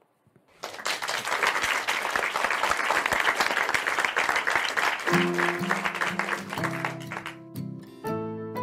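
Applause begins about half a second in, a dense patter of many hands clapping, and fades out near the end as plucked acoustic guitar music starts up about five seconds in.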